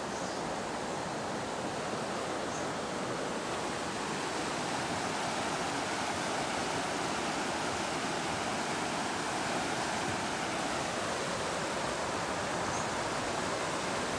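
Steady rushing of a fast river current pouring over shallow rapids, rain-swollen and running high.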